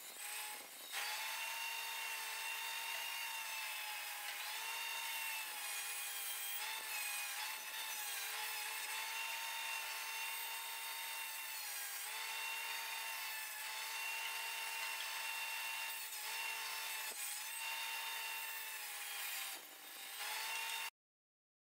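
Bandsaw blade cutting through a wooden block: a steady whine over a rasping hiss, its pitch wavering slightly as the wood is fed. It eases briefly near the start and again just before the end, then cuts off abruptly.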